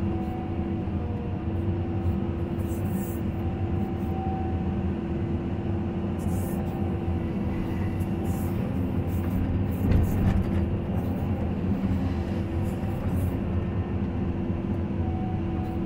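Caterpillar 320 hydraulic excavator's diesel engine and hydraulics working steadily under load, heard from inside the cab, while it digs sticky wet clay and loads it into a dump truck. There is one louder knock about ten seconds in.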